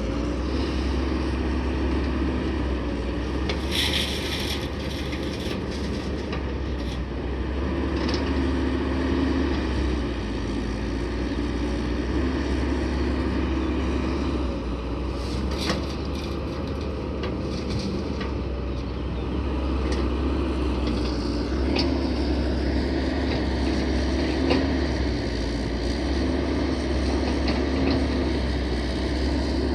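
Heavy truck engine running steadily, with a short hiss about four seconds in and scattered knocks and clatter.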